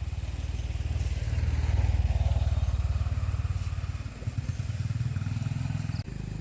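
A small engine running steadily with fast, even firing pulses, getting louder about two seconds in, with an abrupt change just before the end.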